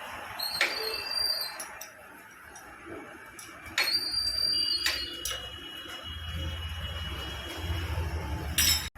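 Metal hand tools clinking and ringing on the motorcycle engine as the timing-chain tensioner is tightened, with two sharp ringing clinks about half a second and four seconds in and lighter clicks between. A low steady hum comes in for the last three seconds.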